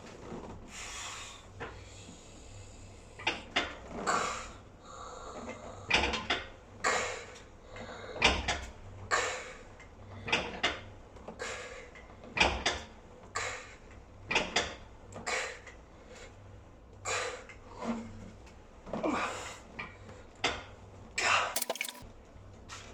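A set of reps on a gym machine: short, sharp bursts of effort, about one a second, from the lifter's hard breathing and the machine moving, over a steady low hum.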